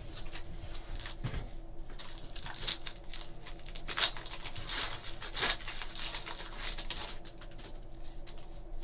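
A shiny foil wrapper of a 2012-13 Panini Brilliance basketball card pack crinkling and being torn open, a series of short rasping rips and crackles, with cards rustling as they are handled.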